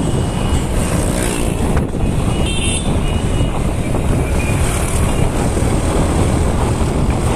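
Street traffic: engines and road noise of passing cars, auto-rickshaws and motorbikes, steady and fairly loud, with a heavy low rumble.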